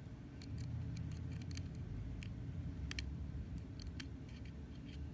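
Small metal tool tapping and clicking against the display cable connector and its metal bracket on a MacBook Pro logic board: a run of irregular light clicks, several close together, over a low handling rumble.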